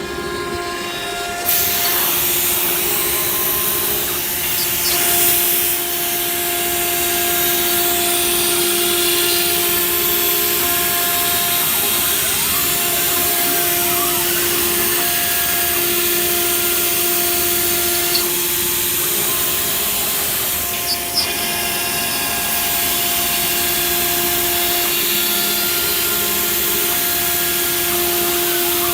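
CNC router spindle running with a steady whine while cutting a wood or board panel; the louder cutting noise comes in about a second and a half in.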